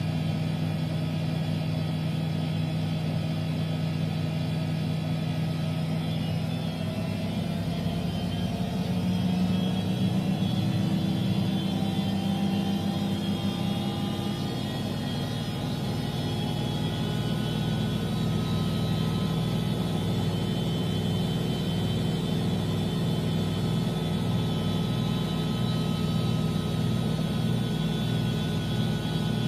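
Miele washing machine running, its motor whine rising in pitch during the first half as the drum speeds up, then holding steady with a low, even pulsing hum.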